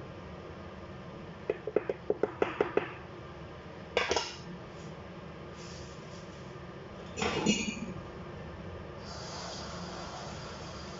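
Wooden spoon knocking against a stainless steel pot of simmering rice pudding: a quick run of about nine taps, then a single knock and a heavier clunk. A faint steady hiss rises near the end.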